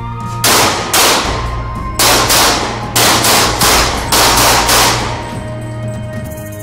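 Pistol gunfire: about ten shots, mostly fired as quick pairs (two rounds to centre of mass), each with a short echo behind it.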